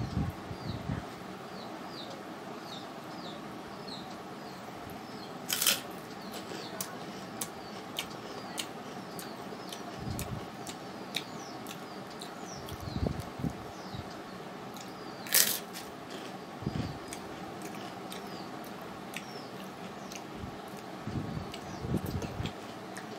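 Close-up eating sounds from someone eating by hand: quiet chewing and mouth sounds, with two sharp clicks about six and fifteen seconds in, over a steady background hum. A small bird chirps repeatedly in the background, about two chirps a second, in the first few seconds and again later.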